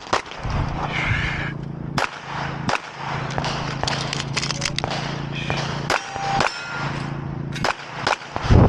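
Handgun shots fired on a pistol-match stage: sharp single reports at irregular intervals, with a quick cluster near the end, over a steady low hum.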